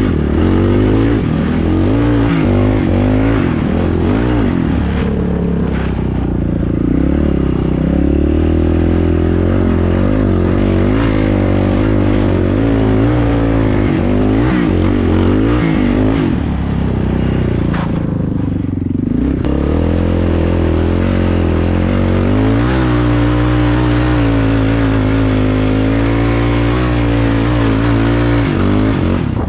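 Yamaha Raptor 660 quad's single-cylinder four-stroke engine under way, its revs rising and falling with the throttle. The throttle comes off briefly about two-thirds of the way through, then the engine picks up again and holds steadier revs.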